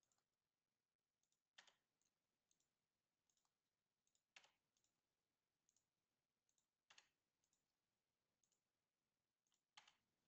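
Near silence, broken by four faint, short clicks a few seconds apart.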